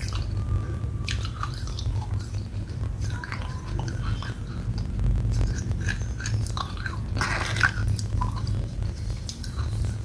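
A person chewing a mouthful of wet red clay paste, with sticky, wet mouth sounds and small irregular clicks of the lips and tongue over a steady low hum. There is one louder click about seven and a half seconds in.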